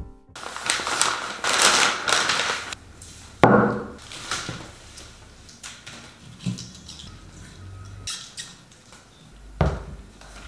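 Scissors snipping tulip stems, with the stems and paper rustling as they are handled, and a few sharp clicks and knocks.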